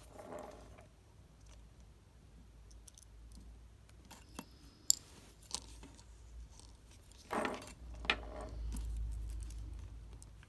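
Faint clicks and scrapes of small metal watchmaker's tools, tweezers and a fine screwdriver, on a digital watch's circuit-board module, with one sharp click about five seconds in and a brief rustle of handling near eight seconds.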